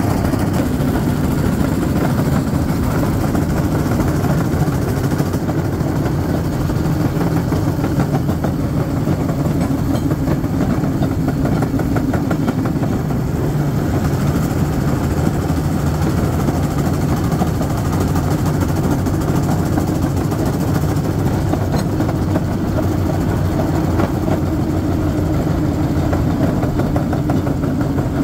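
A railcart's engine running steadily while the cart rolls along the rails: a continuous, even rumble.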